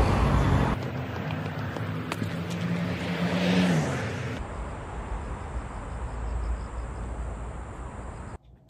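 Street traffic: a motor vehicle goes by, its low engine tone dropping in pitch a little under four seconds in, then a steady traffic hum that cuts off suddenly near the end.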